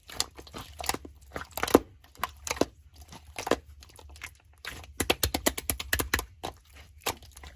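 Slime being squished and worked by hand, giving a busy run of sharp pops and crackles that come thickest a little past the middle.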